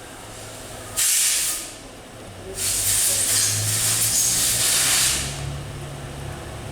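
Two bursts of pressurised hissing, like air or spray let out of a nozzle: a short one of under a second, then a longer one of about two and a half seconds.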